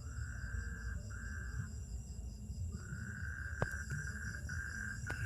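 Insects trilling in the background, several steady high tones at once, with one buzzing trill that comes in long stretches and breaks off for about a second near the middle. Under it is a low rumble, and there are two sharp clicks in the second half.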